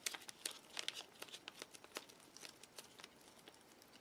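Foil food pouch crinkling and crackling in the hands as tuna is squeezed out of it: a quick run of small crackles that thins out over the last couple of seconds.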